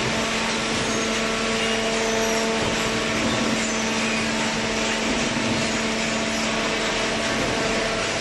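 Horizontal hydraulic waste-paper baler running: a steady machine hum with a constant tone over a noisy hiss, from its hydraulic power unit.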